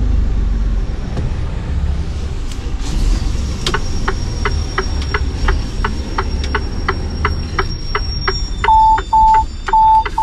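Inside a Mercedes-Benz Actros cab, the diesel engine runs with a low rumble while, from about four seconds in, the turn indicator ticks evenly about three to four times a second. Near the end a cab warning tone beeps four times, short and high.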